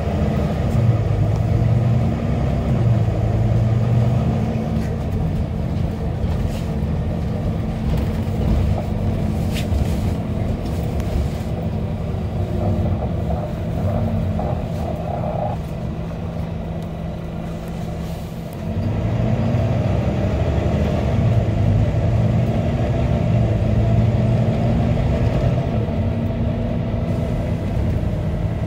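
Bus engine and drivetrain heard from inside the bus while it drives, the engine note repeatedly rising and dropping as it gears up. It eases off for a few seconds past the middle, then grows louder again about two-thirds of the way in as the bus pulls away once more.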